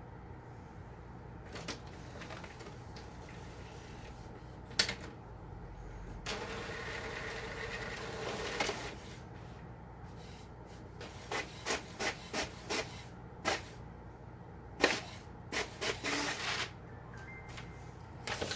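HP Officejet 8600-series inkjet printer mechanism: the print carriage runs noisily for about two and a half seconds, with a steady tone in the noise, then a series of sharp mechanical clicks comes in two bursts. The noise is the symptom of a damaged carriage belt or tension pulley.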